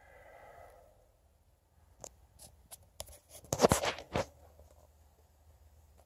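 Feet and hands of a martial artist doing a Meihuaquan form on a gym floor: scattered sharp taps, then a quick loud cluster of slaps and stamps a little past the middle, ending with one more sharp hit.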